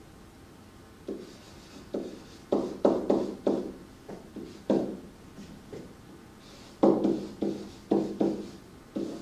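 Handwriting with a pen or marker: after a quiet first second, a string of irregular short taps and strokes as the writing tool meets the surface.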